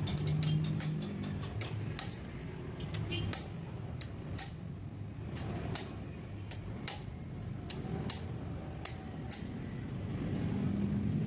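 Irregular metallic clicks and clinks of hand tools on motorcycle engine parts while a new cam chain tensioner is being fitted, over a steady low hum.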